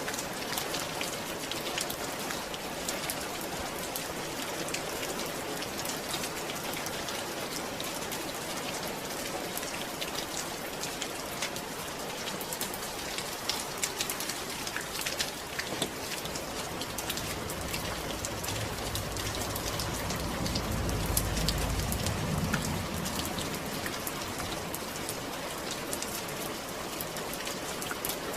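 Steady rain falling, an even hiss full of individual drop ticks. A low rumble swells and fades about two-thirds of the way through.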